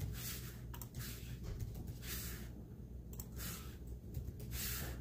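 Quiet typing: a few faint key clicks mixed with several short, soft hissing puffs, over a steady low hum.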